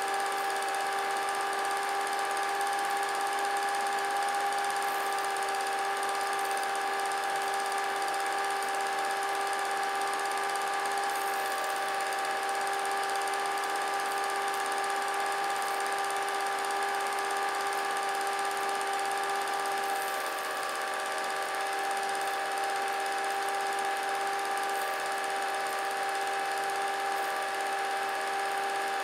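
A small electric motor running with a steady, even whine.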